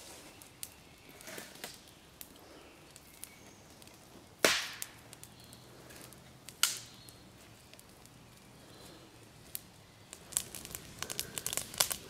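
Dry branches snapped by hand, two loud sharp cracks about four and a half seconds in and two seconds later, over a small twig campfire crackling. Near the end the crackling grows into a dense run of sharp pops.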